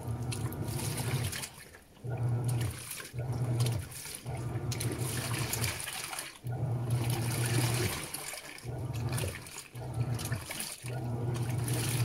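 Panasonic 16 kg top-load washing machine agitating a load of jeans in soapy water during the wash. The motor hums in strokes of about a second with short pauses between them, over steady sloshing and churning water.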